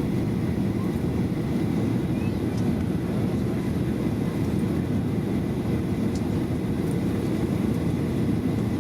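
Steady low rumble inside the cabin of a Boeing 737-700, from its CFM56-7B jet engines and the air and airframe around it, holding an even level with no sudden changes.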